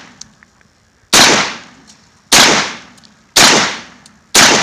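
Garaysar Fear-116 12-gauge semi-automatic shotgun firing four shots, about one a second. Each is a sharp blast that dies away over about half a second.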